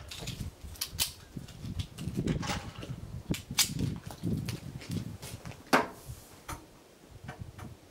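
M1911 pistol firing .45 ACP: a handful of single sharp shots a second or more apart, the loudest near the end.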